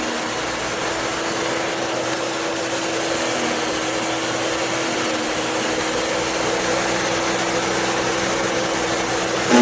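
Electric wood chipper's 15-amp motor running steadily: a constant whine over an even rushing noise, with no chipping impacts.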